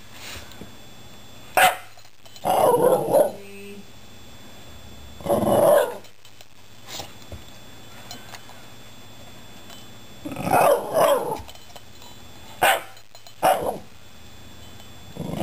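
Shiba Inu "talking": a string of about seven short vocalizations with pauses between them, some brief and sharp and some drawn out to about a second.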